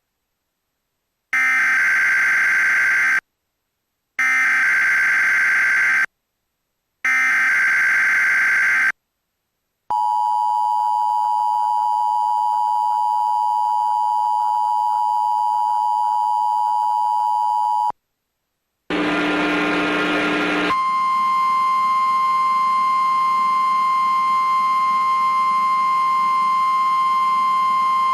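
Emergency Alert System test signal: three screeching bursts of SAME header data, then about eight seconds of the two-tone attention signal. After a short gap comes a brief harsh buzz, then the steady single 1050 Hz NOAA Weather Radio warning alarm tone, held to the end.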